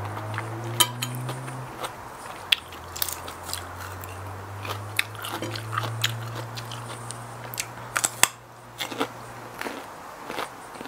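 Close-up eating sounds: chewing and crunching mouthfuls of raw salmon salad and a fresh radish, with many sharp crunchy clicks throughout and a low hum underneath at times.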